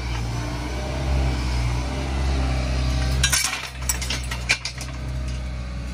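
Hyundai 160 excavator's diesel engine running steadily. A little over three seconds in, a quick cluster of metallic clanks and clinks as the lifting magnet on the bucket comes down on the trash and snaps scrap metal up against it.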